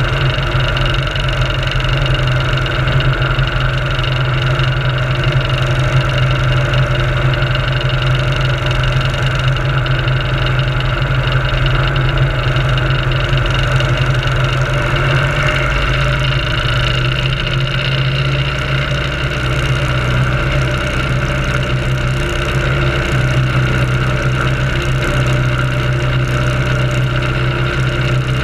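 Biplane's piston engine running steadily, heard loud and close from the wing, with a strong low hum; its low note changes slightly about halfway through.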